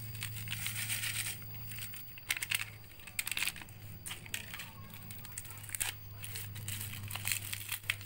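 Crinkling and crackling of small plastic snack packets as they are squeezed, shaken out and torn open, with a few sharper crackles, the loudest about two seconds in. A steady low hum runs underneath.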